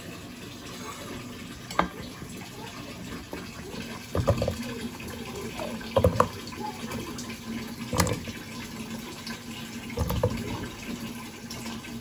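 Hand-cut potato chips dropped a few at a time into a saucepan of water, making about five short splashing plops roughly two seconds apart.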